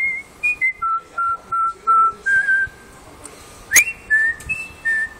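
A man whistling a tune in short, clear notes with a slight vibrato: a run of repeated notes at one pitch, a pause, then a few higher notes. About three and a half seconds in there is a sharp click and a quick upward slide into the next note.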